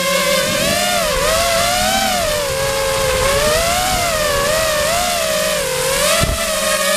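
FPV quadcopter's electric motors and propellers whining, the pitch rising and falling as the throttle changes, heard from a camera mounted on the quadcopter.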